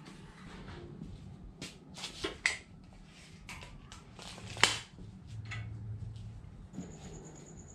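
Light clicks, taps and rustles of hands working a tape measure along a steel tube held in a bench vise, with one sharper click about four and a half seconds in.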